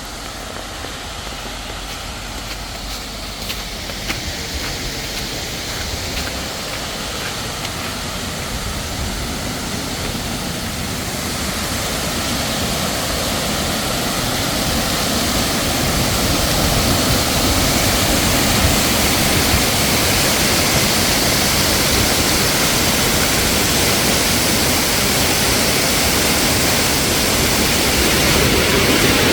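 Waterfall rushing: a steady wash of falling water that grows gradually louder and fuller.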